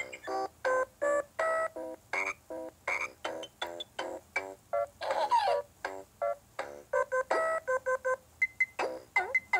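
Electronic melody from a Playskool Kick Start Gym baby activity toy, played as a string of short, separate synthesized notes, two to three a second. About five seconds in, a warbling sound effect of sweeping pitches breaks the tune, and a short dipping glide comes near the end.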